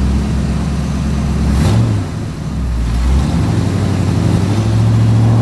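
Remote-control toy excavator's motors running with a steady low hum that steps to a new pitch several times as the load changes.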